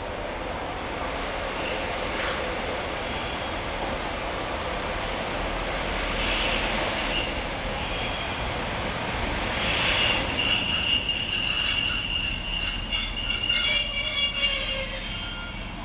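Two coupled Northern Class 144 Pacer diesel units squealing as they brake into the platform to stop. A high-pitched squeal comes and goes at first, then grows louder and steady through the second half, and cuts off suddenly shortly before the end as the train halts.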